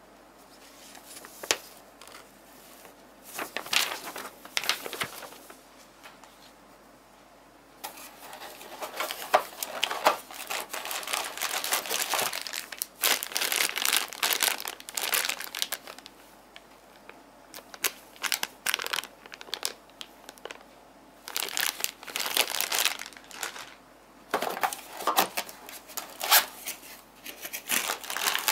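Typing on a Rosewill RK-9000 mechanical keyboard with Cherry MX Blue switches: fast clicky keystrokes in bursts of several seconds, with short pauses between.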